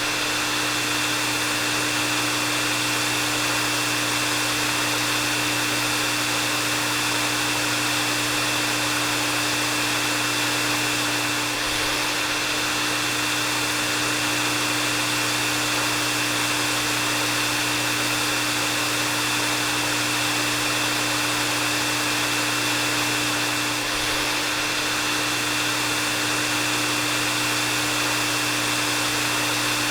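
Electric hair dryer running continuously: a steady rush of blown air with a constant motor hum and a thin high whine.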